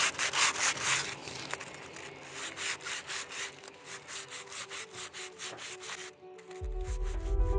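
Rapid back-and-forth rasping strokes of a blade cutting through thick layered aluminium foil, about four to five strokes a second, stopping about six seconds in. Background music rises near the end.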